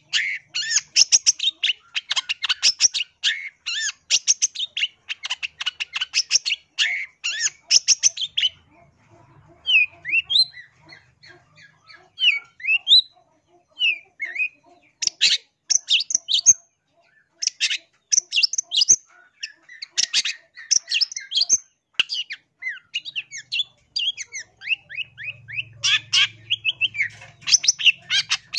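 Long-tailed shrike (cendet) singing in fast, harsh chattering runs of rapid notes. About eight seconds in, it breaks into a few separate short whistled notes, then goes back to bursts of chatter.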